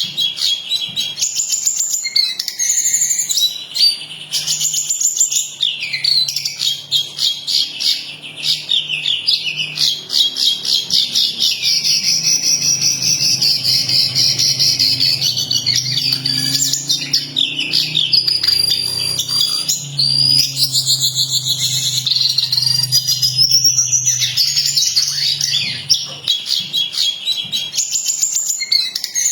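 Jongkangan coklat (a small Indonesian songbird) singing continuously: fast, high-pitched chattering trills and twittering phrases with hardly a pause, over a low steady hum.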